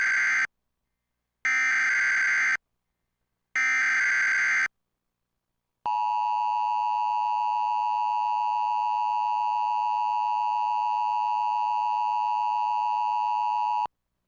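DASDEC Emergency Alert System encoder sending the SAME header: the end of one shrill warbling data burst, then two more, each about a second long with a second's gap between them. These are followed by the EAS attention signal, a steady two-tone electronic tone (853 and 960 Hz) held for about eight seconds that stops abruptly. Together they mark the start of a tornado warning alert.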